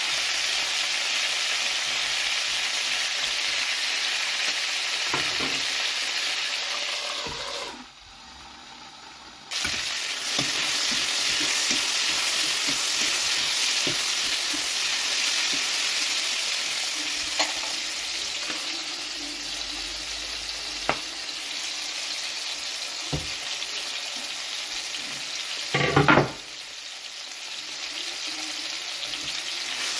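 Red and yellow bell pepper strips sizzling as they fry in oil in a pan, turned by a spatula and tongs, with occasional knocks of the utensils on the pan. The sizzle briefly drops away about eight seconds in, and the loudest knock comes near the end.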